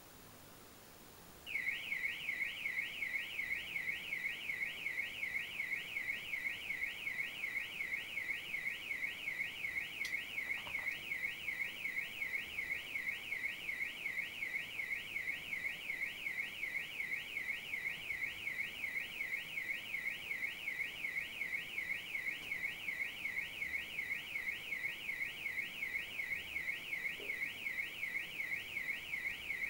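Audi A4's anti-theft alarm siren sounding. It starts suddenly about a second and a half in, then keeps up a fast, even high-pitched warble rising and falling two or three times a second.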